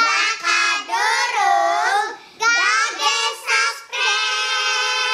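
Four young girls singing together in high child voices, in short phrases; the last note is held from about four seconds in.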